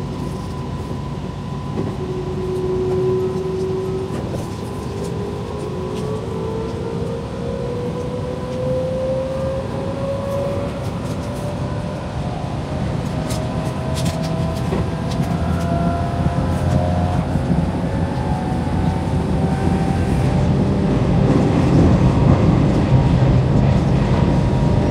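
Electric train running on the rails, heard from the driver's cab: a steady wheel-and-track rumble with a motor whine that slowly rises in pitch as the train gathers speed. The rumble grows louder over the last several seconds.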